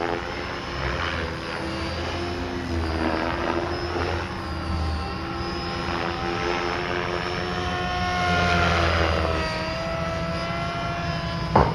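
Radio-controlled model helicopter flying aerobatics: a pitched whine of motor and rotor that swells and glides up and down in pitch as the manoeuvres change. A short sharp click near the end.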